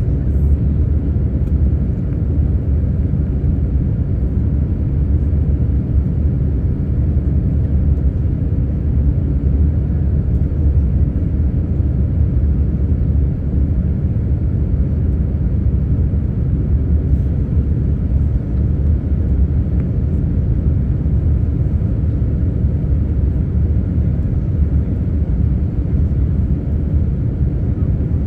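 Steady low rumble of an airliner's cabin noise, engines and rushing air heard from inside the cabin as the plane descends on its approach to land.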